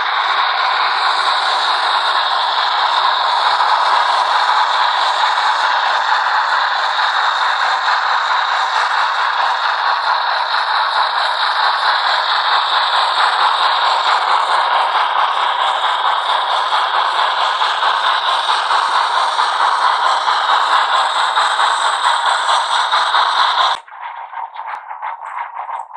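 Sound decoder of a Rivarossi H0 Br 96 Mallet steam locomotive model playing a steady, loud steam hiss with a fast flutter through its small loudspeaker. The hiss cuts off suddenly near the end, leaving a quieter ticking sound.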